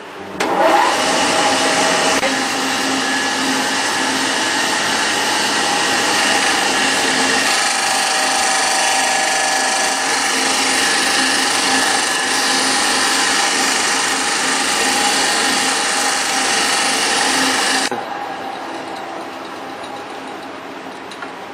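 Disc sanding machine switched on, its motor whining upward as it comes up to speed, then running steadily while a wooden block is pressed against the spinning sanding disc. About eighteen seconds in, the sound drops abruptly to a quieter steady noise.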